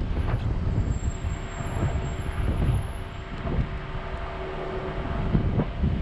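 Car driving along a street: a steady rumble of road and engine noise with wind buffeting the microphone.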